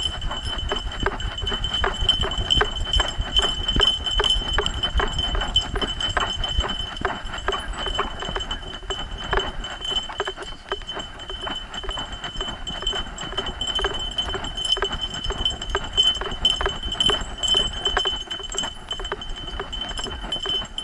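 A dog running at a steady lope on a dirt trail, heard from a camera strapped to its back: a fast, even rhythm of footfalls and harness jostling, with metal jingling in time with each stride.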